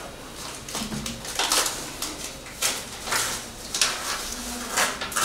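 Sheets of paper and an envelope rustling and crinkling by hand, in irregular bursts with sharper crackles every second or so.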